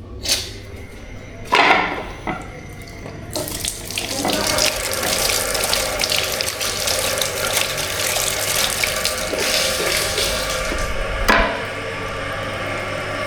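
Water running from a tap into a sink, turned on about three seconds in and flowing steadily. It is preceded by a couple of sharp knocks, and there is another knock near the end.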